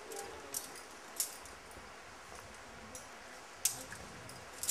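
Climbing gear clinking faintly: a few short, sharp metallic clicks, the clearest just over a second in and another near the end, over a steady low hiss.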